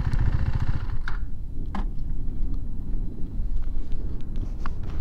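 KTM Duke 390's single-cylinder engine running steadily, a fast, even train of low firing pulses, with a couple of faint clicks in the first two seconds.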